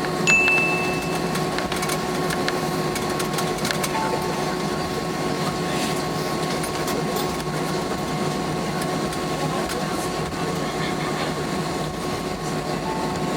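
A steady mechanical drone with several steady hum tones over an even noise, and a brief high beep near the start.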